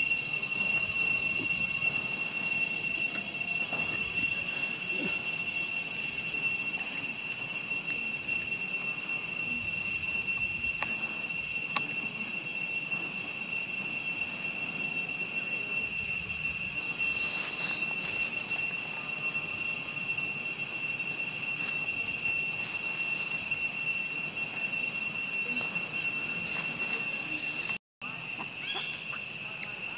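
Steady, loud, high-pitched chorus of insects in the forest, several shrill tones held without a break. It cuts out for an instant near the end and returns slightly quieter.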